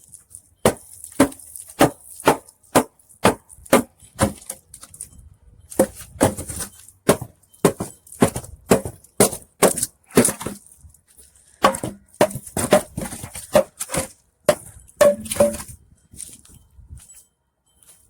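Repeated blows knocking apart the rotten boards of an old wooden deck, about two to three strikes a second in three runs separated by short pauses.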